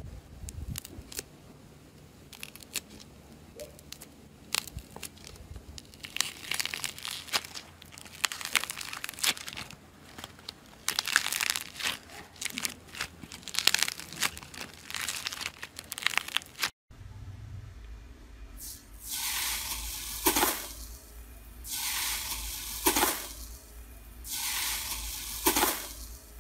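Hands squeezing and kneading a block of rainbow slime balls: dense crinkling crackles and clicks that grow busier partway through. After a cut, a hand presses into bead-filled pink slime in three long hissing, crackling swells over a low hum.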